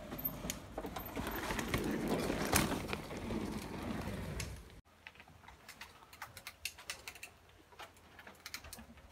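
Mountain bike tyres rolling over the slats of a wooden ride bridge and down onto dirt: a rapid clatter of many small knocks, with one sharp knock about two and a half seconds in. After a sudden cut just before five seconds, only quieter scattered clicks and taps remain.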